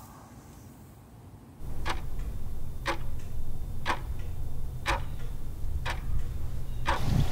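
Clock ticking about once a second over a low, steady rumble. Both start about a second and a half in, after a quiet start.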